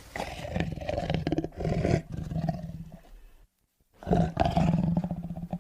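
Tiger roaring: one long, rough roar that dies away about three and a half seconds in, then a second roar begins about four seconds in.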